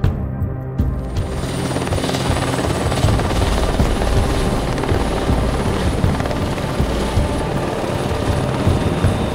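A helicopter hovering low, its rotor and engine noise starting about a second in with a faint steady high whine over it. Music plays underneath.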